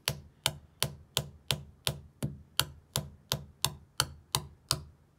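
A hammer tapping a green plastic wall plug into a hole drilled in brick, about fourteen quick, evenly spaced strikes at roughly three a second, stopping near the end, driving the plug in until it comes to a stop.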